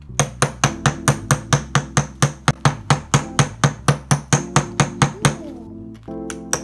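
A small wooden mallet taps a chisel into a plaster dig block from a dinosaur excavation kit, chipping the plaster away. The strikes come fast and evenly, about four or five a second, stop for about a second near the end, then start again.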